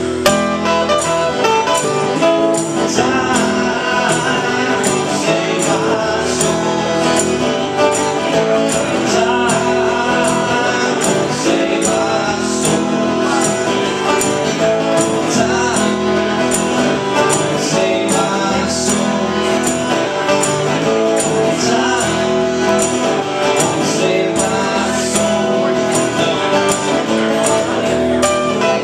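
Live acoustic duo: two acoustic guitars strummed in a steady rhythm, with a man singing.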